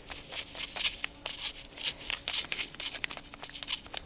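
Small brush scrubbing a motorcycle front brake caliper with kerosene: quick, irregular, scratchy strokes with small clicks.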